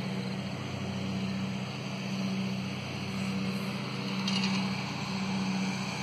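Lawn mower engine running steadily, with an even low hum that holds the same pitch throughout.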